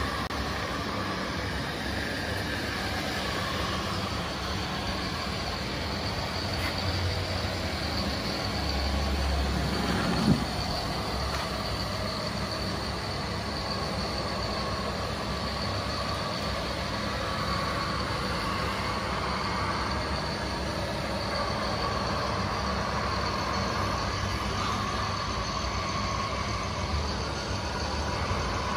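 Radio-controlled model trucks and construction machines running: a steady mix of small electric drive motors and gearboxes with vehicle-like engine sound, plus a brief loud sound with a short pitch sweep about ten seconds in.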